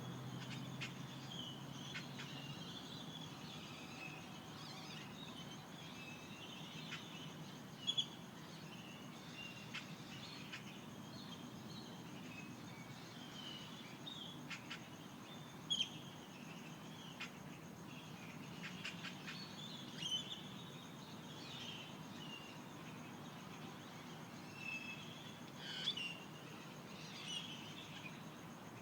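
Dawn chorus of desert birds: many small birds chirping and calling, with a few sharper, louder calls every several seconds, over a faint steady high-pitched tone.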